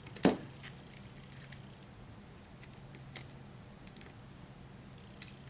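Small hand tools clicking against the metal parts of a model locomotive while small parts are worked off its chassis: one sharp click just after the start, then a few fainter ones, over a faint steady low hum.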